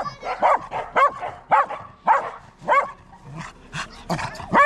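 Black cocker spaniel puppy barking over and over, about two high-pitched barks a second.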